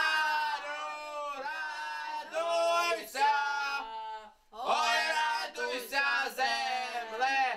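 A small group of voices singing a carol unaccompanied, in held phrases with a short break for breath about four seconds in.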